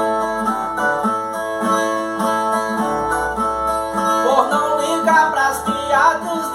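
Brazilian ten-string viola playing a plucked instrumental interlude between sung repente stanzas. A busier melodic run with sliding notes starts about two-thirds of the way through.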